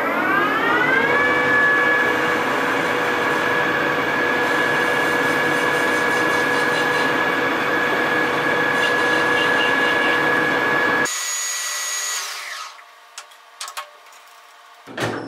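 Metal lathe spindle spinning up with a rising whine, then running steadily while a parting tool cuts into titanium bar stock. About 11 seconds in the motor is switched off and the whine winds down. A few clicks follow, and near the end the spindle starts up again with another rising whine.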